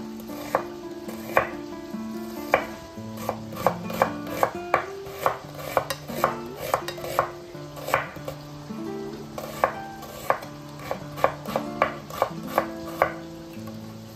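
Kitchen knife slicing red onion on a bamboo cutting board, the blade knocking on the board in short, uneven strokes about two to three times a second.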